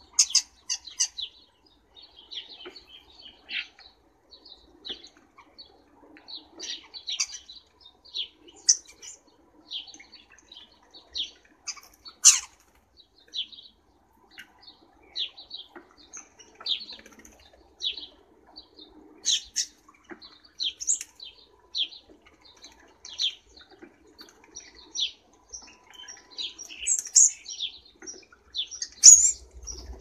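Common starlings chirping and calling in many short, high notes, with wing flutters as birds fly to and from the water dish. The loudest calls come near the middle and near the end.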